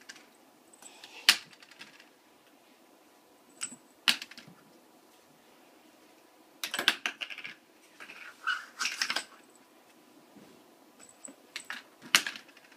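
Small plastic bottle caps clicking and clattering on a wooden floor as a kitten bats them with its paws: a few single sharp clicks, then three bursts of quick clatter.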